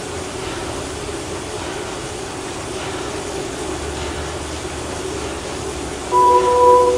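Steady whirring hum of a bicycle on an indoor smart trainer under hard pedalling. About six seconds in, a loud electronic beep sounds, then another a second later: Zwift's countdown to the next step of the ramp test.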